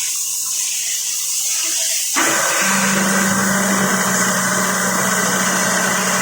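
Hydraulic machinery running with a steady hiss. About two seconds in, a motor hum and a louder rush of flow start up and run on steadily.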